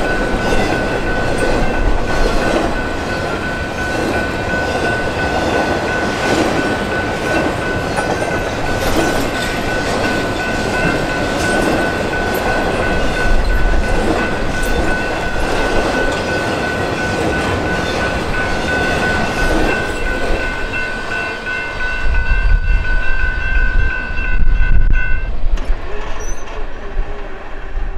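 A train rolling past, its wheels rumbling and clattering on the rails, with a steady high ringing tone over it that stops about 25 seconds in. Near the end, heavy gusts of wind buffet the microphone.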